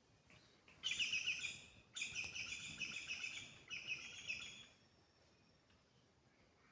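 A bird calling in three quick runs of rapid, pulsing high notes over about four seconds, then stopping.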